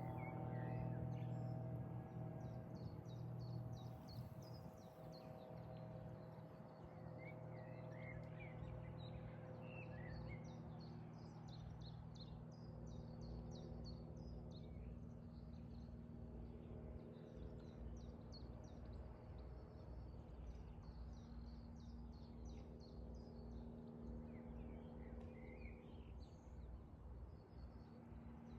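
Small birds singing and chirping throughout in quick high twittering phrases, over a low steady hum that is strongest in the first few seconds.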